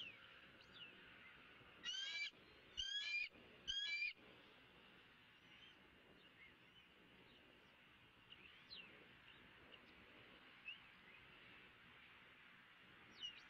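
Three loud, wavering bird calls in quick succession, each about half a second long, about two seconds in. Faint short chirps of small birds come and go around them.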